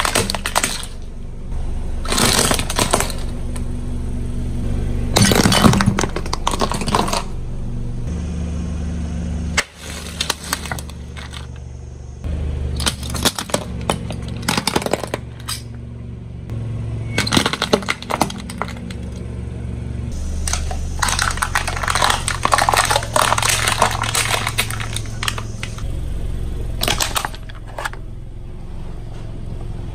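Car tyre rolling over and crushing brittle objects: bursts of crunching and crackling, several times, over a steady low engine hum that shifts abruptly in level a few times.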